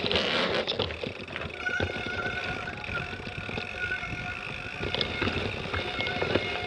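Mountain bike riding over a rough dirt and rock trail: tyres rumbling on the ground and the bike rattling with many quick knocks as it goes over bumps, over a faint steady high tone.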